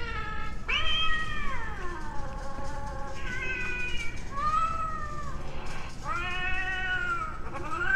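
Halloween black cat decoration playing recorded cat meows: a string of drawn-out meows, each about a second long, rising then falling in pitch.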